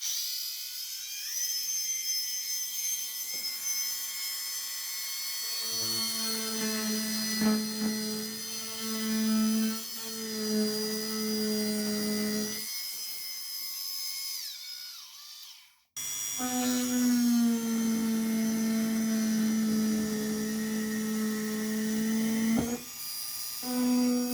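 Dremel rotary tool running at high speed with a steady high whine, its bit cutting into the roto-molded plastic of a kayak hull around a rusted threaded insert. A lower drone joins the whine about a quarter of the way in; a little past halfway the tool winds down and stops, then starts again at once.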